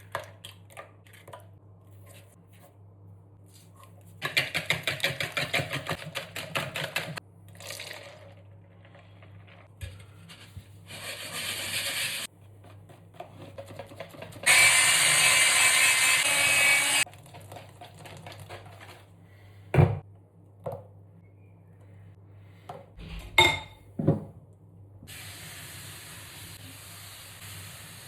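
Pancake batter being prepared and cooked. There is rapid rhythmic beating in a bowl, and the loudest sound is a small electric kitchen appliance whirring for a few seconds. A few sharp utensil knocks follow, then a steady sizzle near the end.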